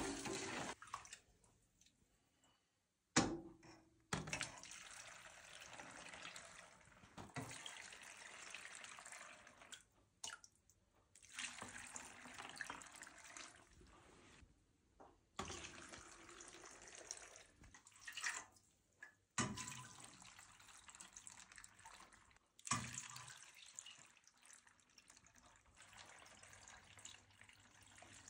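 Pickling brine poured from a ladle and from a pot into glass jars of vegetables, the liquid splashing and trickling in several short stretches separated by abrupt breaks.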